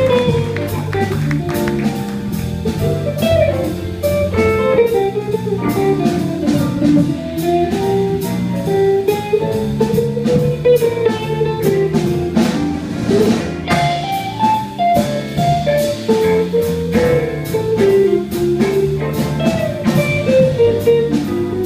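Live jazz band playing an instrumental: a wandering melody line over a steady bass line, with a drum kit keeping time on the cymbals and piano and electric guitar in the mix.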